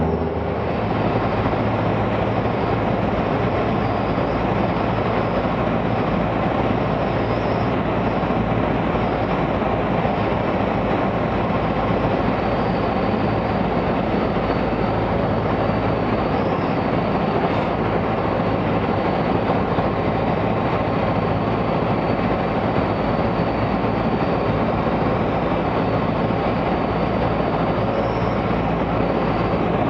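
Steady drone of a Cessna 172's piston engine, propeller and airflow in cruise flight, heard from inside the cabin: a loud, even rumble with a low hum that holds unchanged throughout.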